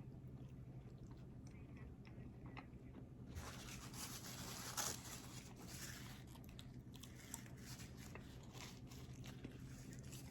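Close-miked chewing and biting of burger and fries, with crunching and mouth clicks that set in about three seconds in, over a low steady hum.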